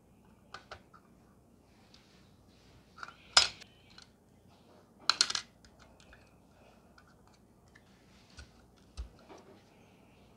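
AM5 CPU socket being clamped shut: the steel load plate and retention lever clacking as they are pressed down and latched. A few light taps, one sharp clack about three and a half seconds in, and a quick rattling cluster of clacks around five seconds in.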